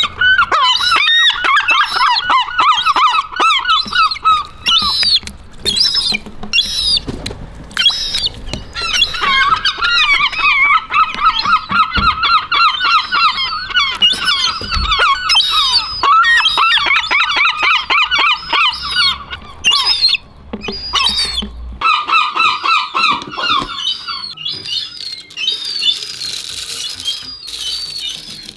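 Seagulls calling in long bouts of rapid, wavering, squeaky cries, with a few short pauses between bouts. Scattered sharp taps come in between the calls.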